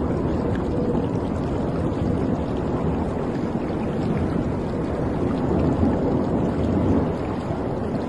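Water washing and splashing steadily against the hull of a cruise ship, over a low rumble.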